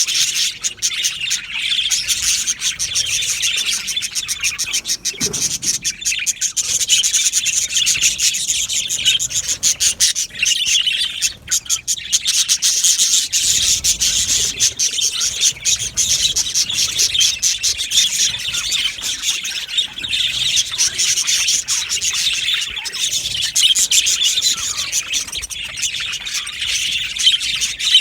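A flock of budgerigars chirping and chattering all at once, a dense unbroken warble of many overlapping calls.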